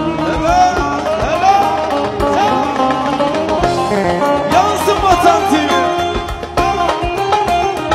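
Instrumental break of Turkish folk-style music: a bağlama and a violin play ornamented, sliding melodic runs over a steady percussion beat.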